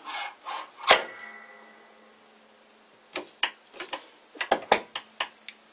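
A sharp metallic clank about a second in, ringing briefly with a few clear tones, then a string of small metal clicks and taps as a center drill is fitted into the lathe tailstock's drill chuck.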